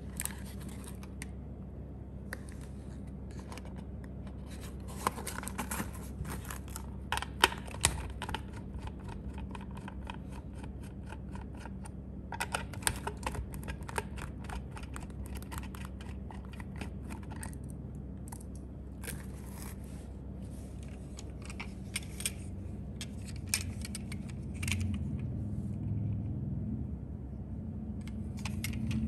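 Cardboard toy packaging and its plastic parts being handled and opened: a run of irregular clicks, taps and crinkles, in clusters with short pauses, over a steady low hum.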